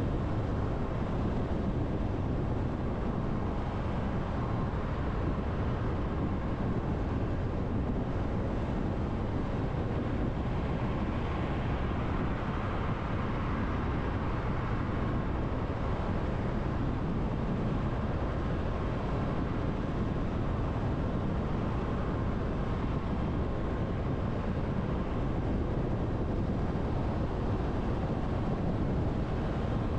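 Steady road noise of a car cruising at expressway speed: tyre rumble and wind, even throughout.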